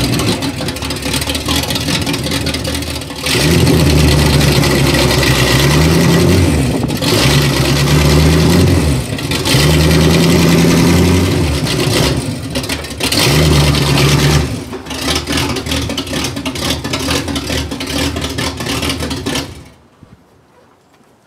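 1985 Chevy K10 pickup's engine revving in repeated bursts as the truck is driven to climb onto ramps, which is hard because there is no weight on the rear wheels. The engine is shut off suddenly near the end.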